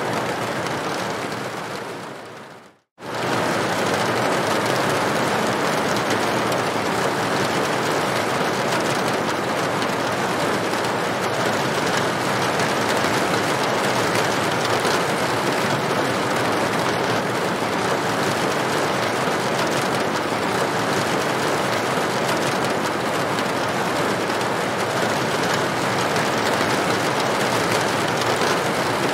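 Heavy rain drumming steadily on a tin roof, a dense, even hiss of drops. About two seconds in it fades away to a moment of silence, then cuts straight back in at full level and runs on steadily.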